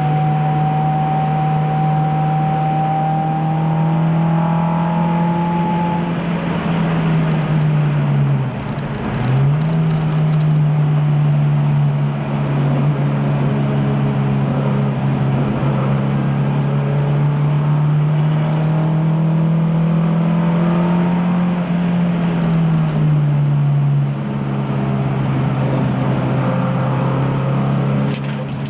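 In-car sound of a 1971 Alfa Romeo Giulia's twin-cam four-cylinder engine running hard at racing speed, the engine note holding steady. About eight seconds in the revs dip sharply for a moment and come straight back, and near the end they fall to a lower steady note. A fainter, higher whine rises slightly in the first few seconds.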